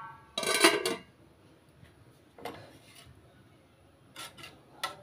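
Steel cooking pots and a steel spoon clattering and clinking: one loud clatter about half a second in, then a few lighter knocks and clicks near the end.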